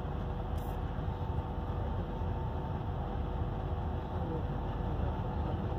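Long freight train of open wagons rolling past with a steady low rumble, heard dulled through window glass, with a faint steady hum over it.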